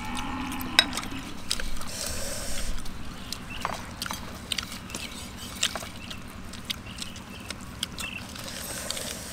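A run of small, irregular clicks and taps, over a faint steady low hum.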